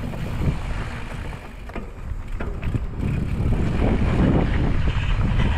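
Wind rushing over an action camera's microphone as an electric mountain bike rolls along a dry dirt singletrack, with tyre rumble and scattered knocks and rattles from the bike over the rough trail. The rushing grows louder about three seconds in.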